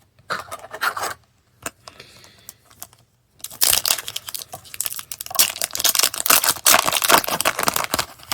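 Foil booster pack being torn open and crinkled in the hands: a few short rustles, then a long stretch of dense crackling from about three and a half seconds in.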